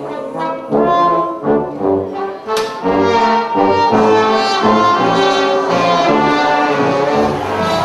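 Brass-led band music: horns playing a tune in short rhythmic notes, with a sharp crash about two and a half seconds in, after which the music gets fuller and louder.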